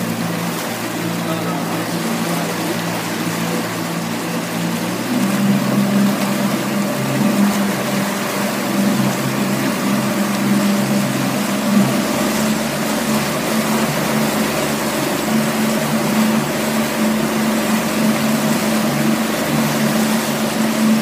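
Tohatsu outboard motor running steadily under way, its engine note stepping up slightly and getting louder about five seconds in, with the hiss of the boat's wake over it.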